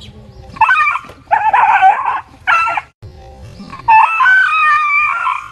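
Dog yelping and howling in four high-pitched cries, the last one long and wavering, while it tussles with a stuffed toy tiger.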